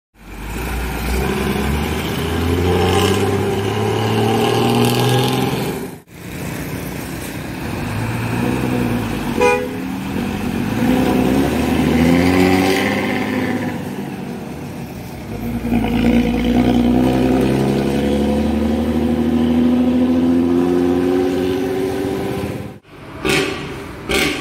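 Bus engines running through modified exhausts, revving so the note rises and falls, with a long steady climb in pitch under acceleration late on. The sound breaks off abruptly twice.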